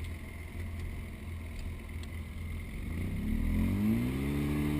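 Side-by-side UTV engine, a Polaris RZR, running at a low steady rumble, then revving up about three seconds in, its pitch rising and then holding higher.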